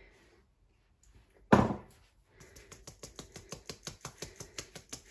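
A hand tapping the side of a fine-mesh metal sieve full of lumpy light brown sugar to shake it through into the bowl: quick, even taps, about five a second, growing louder. A single loud thump comes about one and a half seconds in.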